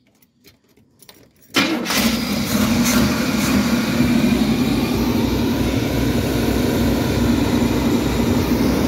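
A motorhome's gasoline engine, sitting unused for over ten years, fires up about a second and a half in after a few faint clicks, catching almost at once. It then runs steadily.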